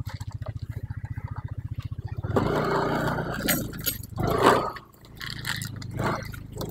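Plastic bag rustling and crinkling in two louder spells, about two and a half seconds in and again near four and a half seconds, as goods are pulled out of it. Underneath runs a steady, low, fast-pulsing hum.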